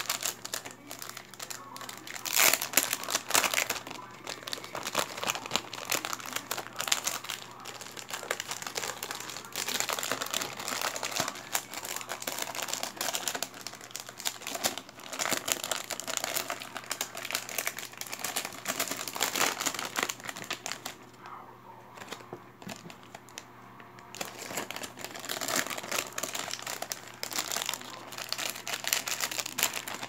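Thin clear plastic zip bags crinkling as they are handled and opened, in irregular crackling bursts, with a short lull about two-thirds of the way through.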